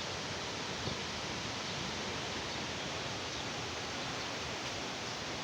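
Storm wind blowing through trees, a steady rustling of leaves.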